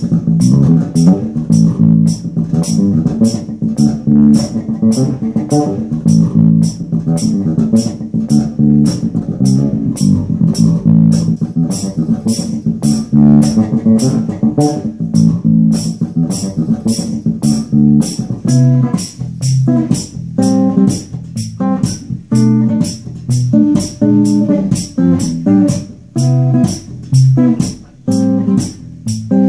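RMI Expression 5 bolt-on five-string electric bass, tuned low E to high C, played through an amp: a running bass line, moving to higher notes stacked in chords about two-thirds of the way through. A steady high tick keeps time about twice a second.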